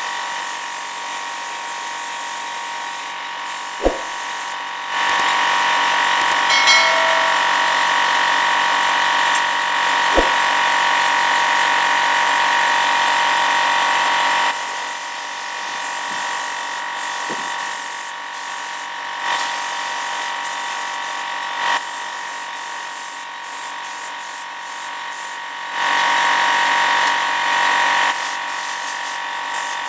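A small electric power tool running with a steady high whine, getting louder for a stretch of several seconds twice, with a few sharp knocks.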